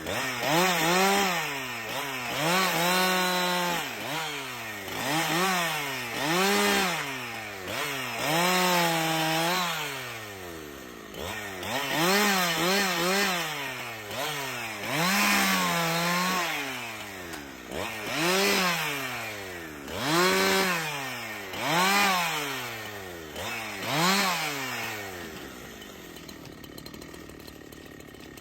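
Two-stroke chainsaw revving up and falling back over and over, roughly every two seconds, while it cuts wood. It drops to a quieter idle near the end.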